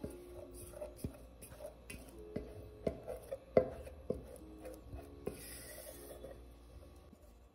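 Kitchen utensils in use: a series of light, irregular knocks and taps, the sharpest about three and a half seconds in, with a brief scrape or rustle near the end.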